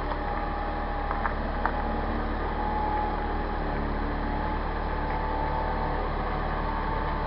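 Car engine running steadily at low revs as the car reverses slowly out of a garage, with a couple of light clicks about a second and a half in.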